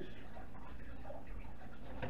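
Quiet, steady room noise with a low hum and no distinct events.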